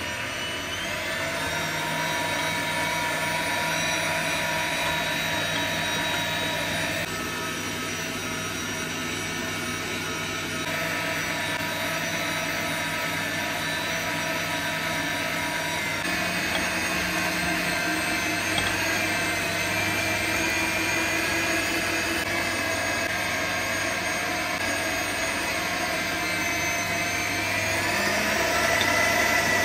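Electric stand mixer running a meat-grinder attachment, its motor whining steadily while it grinds tomatoes and bell peppers into pulp. The pitch of the whine shifts a few times as the grinding goes on.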